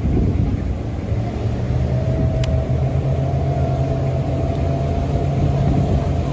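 Parasail boat's outboard engine running steadily at speed: a loud low hum with rushing wind and water noise over it. A faint steady whine joins about two seconds in.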